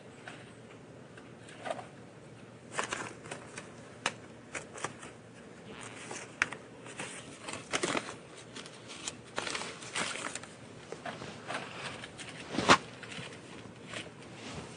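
Scattered light clicks and rustles, with a few louder knocks among them, the sharpest near the end.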